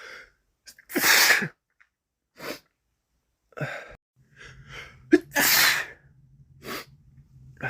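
A man with a head cold sneezing loudly twice, about a second in and again about five and a half seconds in, with short breaths and sniffs between.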